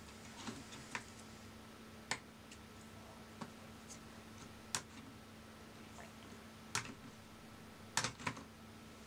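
Sparse, irregular small clicks and taps as gloved fingers work the ribbon-cable connector latches and plastic parts of an opened Nikon D90 camera body, over a faint steady hum. A quick double click near the end is the loudest.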